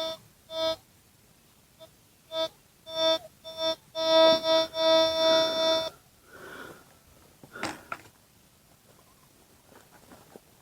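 Metal detector target tone: a buzzy beep sounding in short, uneven bursts as the coil is swept over buried metal, then held steadily for about two seconds before cutting off. The response is jumpy rather than a clean, repeatable signal. A short scuff follows near the end.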